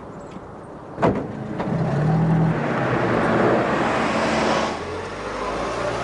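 A moving car's engine and road noise, rising in level after a sharp click about a second in and easing off near the end.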